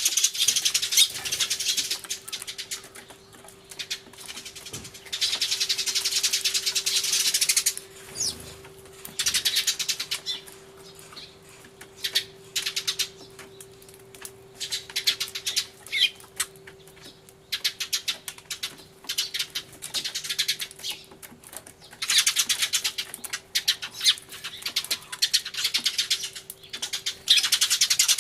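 A flock of Eurasian tree sparrows chirping hard in a dense, loud chorus that comes in bouts of a few seconds, with quieter stretches of scattered chirps between.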